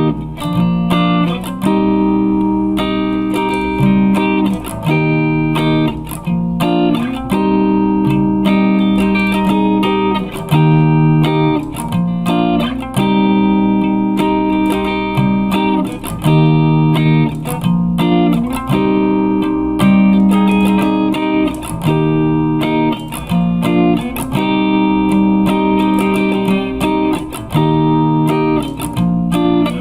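Guitar playing an instrumental piece: plucked chords struck in an even rhythm, one after another, with no singing.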